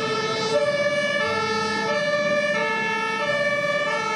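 Two-tone emergency siren alternating between a low and a high pitch, each held for about two-thirds of a second, with other siren tones layered over it.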